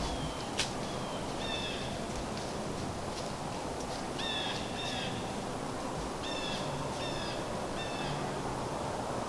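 A bird calling in short, harsh, pitched calls, repeated in groups of two or three, with a sharp click about half a second in.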